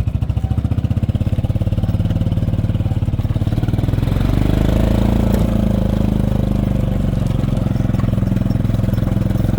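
A small vehicle's engine running at low speed, picking up speed about four seconds in and then holding steady.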